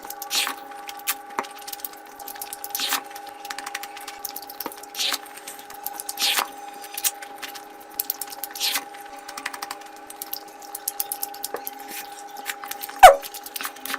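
Close-miked eating of curry: wet chewing and smacking clicks, with a short slurp or suck about every two seconds. Near the end comes one sharp falling sound, the loudest moment.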